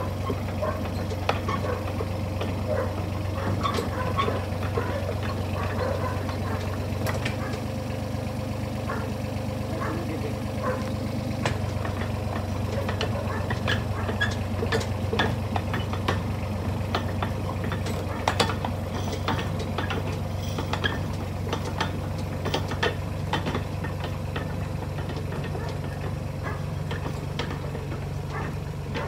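Mini excavator engine running steadily while the machine crawls on its tracks, with frequent clanks and rattles from the tracks and undercarriage. It is compacting backfilled soil over a buried pipe by driving over it.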